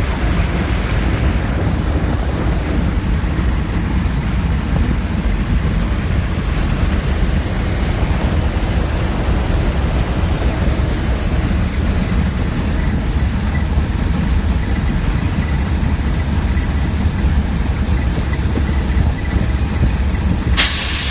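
Steady loud rumble of a light aircraft's engine and rushing air, heard from on board, with a faint whine that slowly falls in pitch. A short burst of hiss comes near the end.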